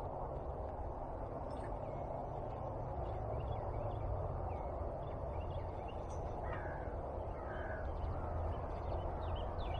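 Birds calling in the background: scattered short chirps and two louder calls about two-thirds of the way in, over a steady low rumble.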